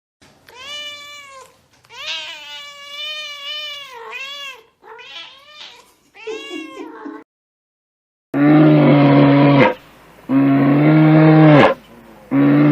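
Domestic cat meowing several times, long drawn-out meows rising and falling in pitch. After a brief silence come three much louder, deeper, long calls from a different animal.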